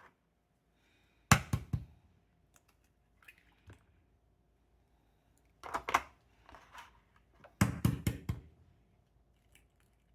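Three clusters of sharp knocks and clicks in a small room, about a second in, near the middle and again a little later, with faint scraping between them.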